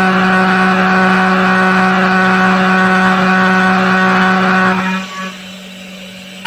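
CNC machine milling a plate: a steady, loud, pitched whine from the spindle and cutter while the tool is in the cut. About five seconds in it drops to a quieter, lower hum as the cutter comes out of the material, with the spindle still running.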